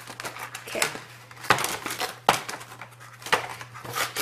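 Clear plastic retail packaging being pried apart by hand: about five sharp plastic clicks and cracks spread through, with crinkling and rustling between them.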